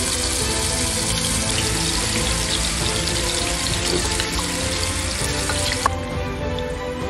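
Marinated chicken pieces sizzling and spitting in hot sunflower oil as they are shallow-fried in a nonstick pan, over steady background music. About six seconds in there is a short click, and the hiss turns softer and duller.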